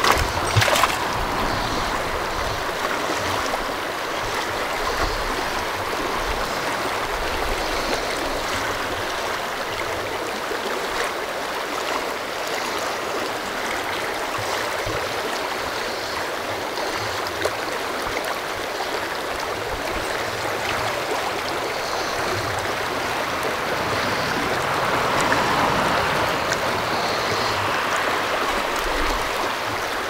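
Shallow mountain creek riffling over a cobble bed: a steady rush of running water, with one brief knock about a second in.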